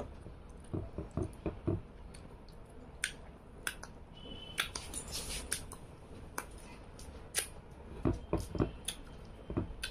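Hand-eating sounds: fingers mixing rice on a ceramic plate, with scattered short clicks and soft taps. In the middle, wet lip and finger-licking smacks.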